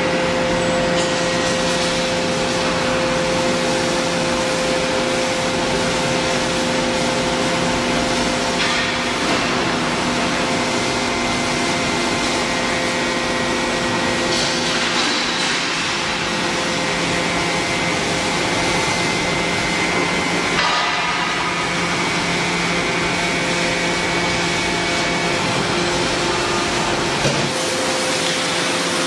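315-ton hydraulic press running: the hydraulic power unit gives a steady hum and whine over a hiss, changing in tone a few times.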